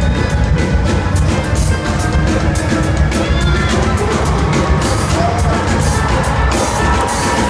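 A live band playing loudly: banjo over a drum kit and band, with a steady beat of drum hits.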